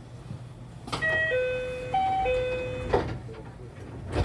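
A short electronic chime of four notes, about two seconds long, over the steady low hum of the standing 227 series train. A sharp knock comes just before the chime, and another near the end.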